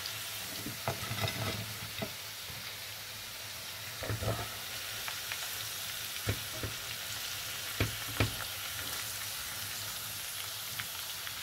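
Chicken pakodi deep-frying in hot oil in a pan: a steady sizzle, with a few clicks and knocks as a wire skimmer works in the pan to lift the fried pieces out. The sizzle cuts off suddenly at the end.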